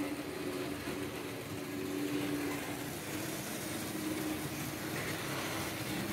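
Märklin H0 model train running on the layout: a steady hum from the electric motor, with the rolling noise of wheels on the track.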